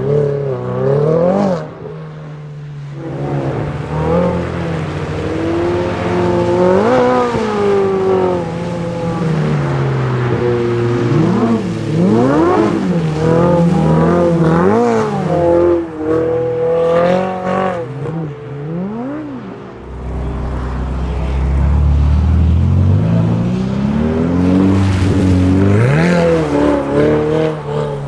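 Ferrari 488 GTB's twin-turbo V8 through an Akrapovic exhaust, revving up and falling back again and again while the car drifts. A deep rumble swells for a few seconds about two-thirds of the way through.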